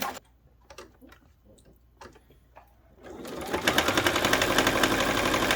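Baby Lock sewing machine: a few light clicks, then about three seconds in the machine starts and runs fast in an even, rapid stitching rhythm.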